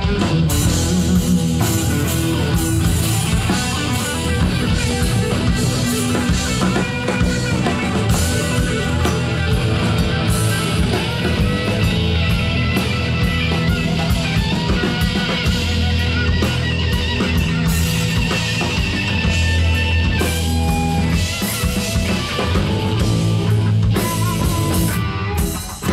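Live rock band playing a blues-rock song loud, with electric guitars, bass guitar and drum kit, the sound dipping briefly near the end.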